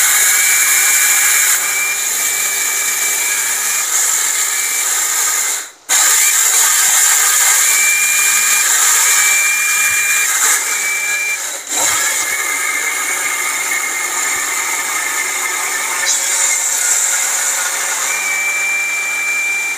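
Jaipan Fruttica mixer grinder running at full speed, its stainless steel jar full of dry rice being ground into rice flour. A loud steady grinding noise with a high whine on top, broken twice by a short gap.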